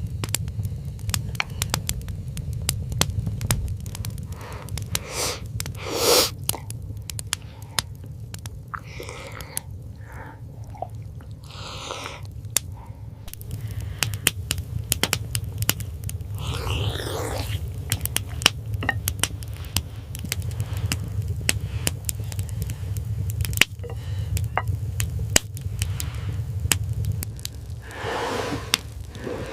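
Wood fire crackling: many sharp pops and clicks over a steady low rumble, with a few brief rustling swishes.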